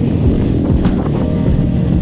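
Background music over a Rusi KRY 200 dirt bike's engine running steadily at riding speed.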